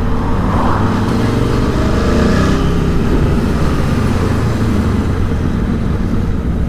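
Aprilia Tuono V4 1100 Factory motorcycle under way: its V4 engine running, with wind and road noise, its note shifting in pitch over the first few seconds as the bike picks up speed.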